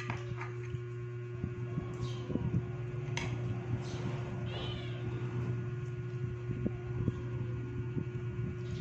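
A pet cat meowing at the table, with one arching call about halfway through.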